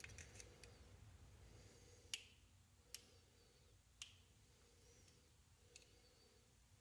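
Faint sharp clicks from a screwdriver being worked in to pry the flywheel off a Traxxas 3.3 nitro engine. There are a few light ticks, then three clearer clicks about a second apart.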